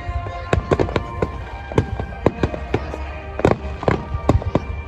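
Aerial fireworks in a festival finale: many sharp shell bursts going off in quick, irregular succession, several a second.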